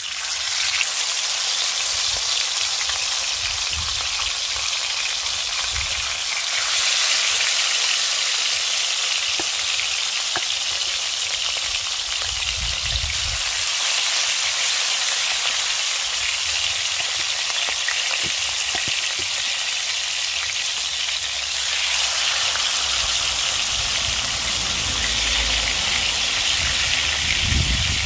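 Pieces of seasoned wild bird frying in hot oil in a stainless steel pan: a steady, loud sizzle that starts suddenly as the first piece goes in, and grows louder about a quarter of the way through and again about three quarters through as more pieces are dropped in.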